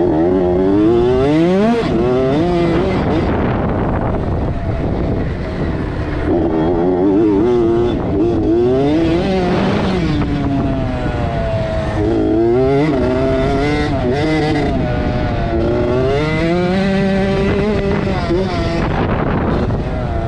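KTM 65 dirt bike's small two-stroke single-cylinder engine revving hard under riding. Its pitch climbs and drops over and over as the throttle is worked through the track's corners and straights.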